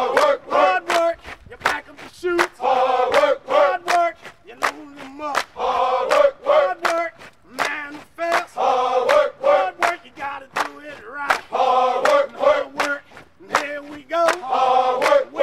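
Group of construction workers chanting in unison in a steady rhythm, loud phrases of voices together recurring about every three seconds, with short sharp sounds in between.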